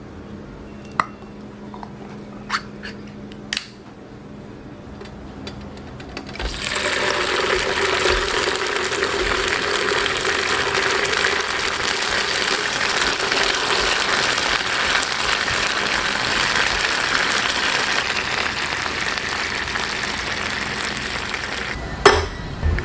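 A few sharp clicks over a low hum, then a steady loud hiss that starts about six seconds in and keeps going, with a knock near the end.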